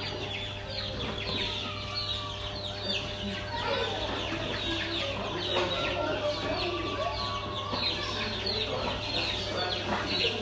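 A brood of young chicks cheeping continuously: many short, falling high peeps overlapping one another, with lower notes among them, over a steady low hum.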